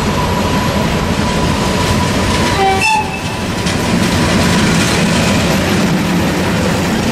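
A ČSD T478.1 'Bardotka' diesel locomotive, with a six-cylinder ČKD engine, passes close by with its engine running under load. Its wheels clatter over the rail joints as the double-deck coaches roll by behind it.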